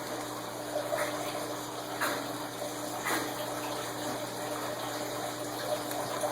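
Cardboard packaging scraping and rustling as a tightly packed item is worked out of its box, in a few faint strokes about a second apart over a steady rushing noise with a low hum.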